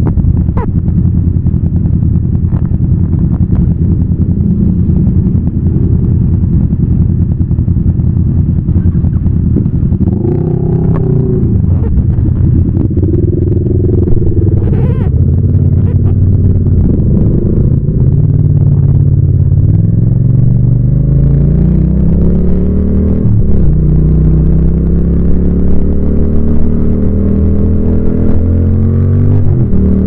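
Yamaha MT-07's 689 cc parallel-twin engine running under way. In the second half the revs climb steadily, drop suddenly at a gear change, then climb again, with smaller rises and falls of throttle earlier on.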